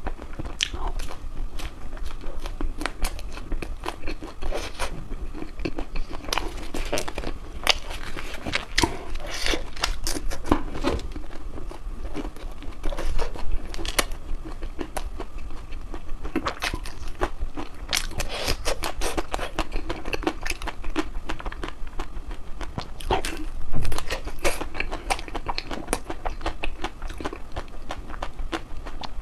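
Close-up chewing and biting of crispy chocolate ice cream: irregular crunching and crackling of the hard chocolate shell, with a louder bite near the end.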